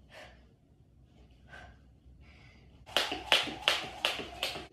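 Jump rope skipping: the rope slaps the floor five times in quick, even rhythm, a little under three strikes a second, starting about three seconds in. Faint breaths come before it.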